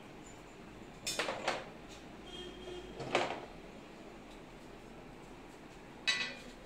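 Three short bursts of metallic clattering and knocking as a TV wall-mount bracket and its parts are handled and set against the wall: one about a second in, one about three seconds in, and one near the end.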